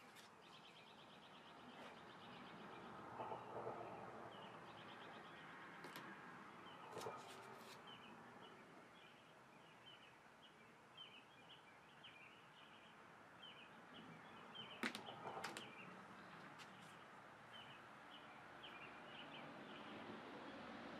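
Faint room tone with small birds chirping over and over in the background. A few light clicks and taps come from tools being handled on the tabletop, the loudest cluster about fifteen seconds in.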